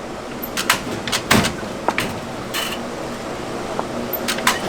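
Sharp knocks and clatters over a steady machine hum. There is a burst of several knocks about a second in and more near the end.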